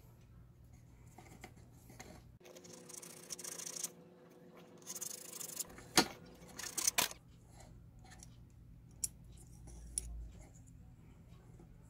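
Small metal parts being handled: a few brief scrapes and rubs, a sharp metallic click about six seconds in, and two light clicks near the end as a silver guard is fitted onto a steel knife blade.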